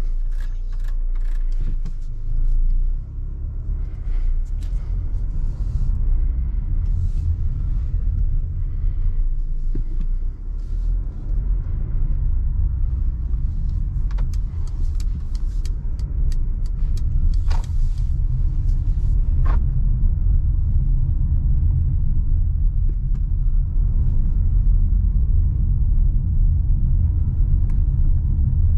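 Mercedes GLA's turbocharged 1.3-litre four-cylinder petrol engine and its tyres on the road, making a steady low rumble while driving. A few light clicks and knocks sound in the first two-thirds.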